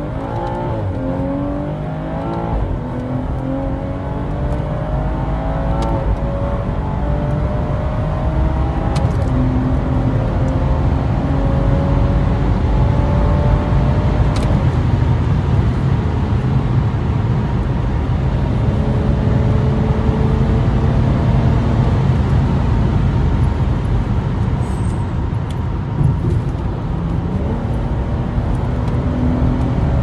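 Tuned BMW 340i's 3.0-litre turbocharged straight-six heard from inside the cabin under hard acceleration: the revs climb and drop through quick upshifts in the first few seconds. After that it pulls steadily at high speed in one gear with a loud low drone and road rumble, the revs rising slightly again near the end.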